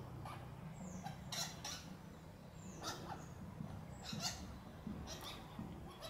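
Flameback woodpecker bathing in a small water-filled box: short bursts of splashing and wing-fluttering every second or so. Thin, high, falling chirps of small birds sound behind it.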